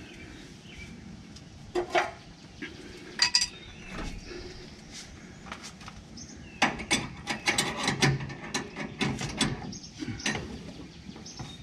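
A wrench clicking and scraping on metal fuel-line fittings as the lines are fitted to a newly installed fuel pump: a few separate clicks, then a quick run of clicks over the second half.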